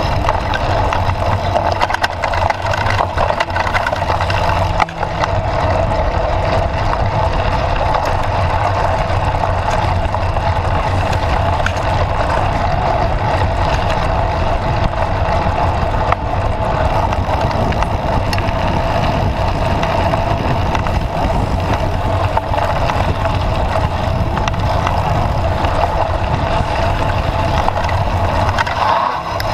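Steady noise of a bike being ridden over a rough dirt trail, recorded from the bike: wind on the microphone and the rattle of the bike over the ground, with many small knocks.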